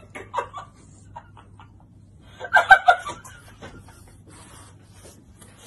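A person laughing in a quick run of short bursts, loudest about two and a half seconds in, with a few softer chuckles near the start.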